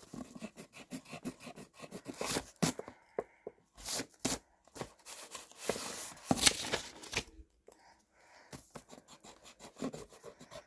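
Graphite pencil scratching on paper in short, irregular sketching strokes, with paper rubbing and a couple of brief pauses.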